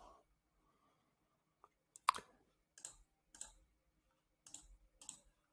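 Computer mouse clicking, five faint separate clicks a little over half a second apart, the first the loudest.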